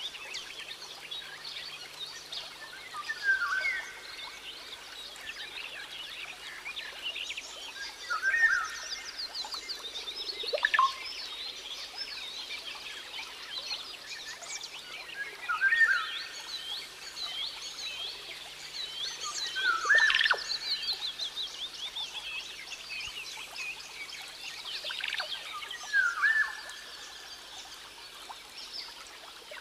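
Rainforest ambience: a dense chorus of fast, high chirping animal calls, with a louder short call standing out five times, about every four to six seconds.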